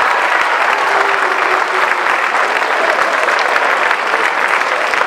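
Audience applauding, many hands clapping together, easing off slightly toward the end.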